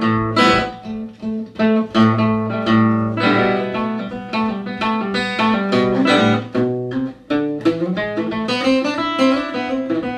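Old-time jig played on plucked acoustic guitar: a quick run of picked notes over a steady bass.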